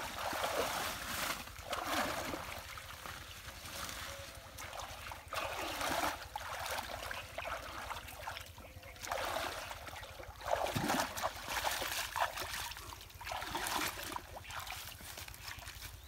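Muddy water sloshing and splashing as hands and legs move through a shallow pool, in irregular swishes, some louder than others.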